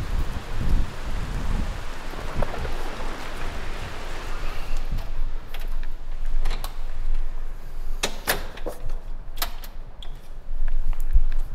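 Dust-storm wind rushing and buffeting the microphone. About five seconds in, the wind noise drops away and a few sharp clicks and knocks follow, the loudest about eight seconds in.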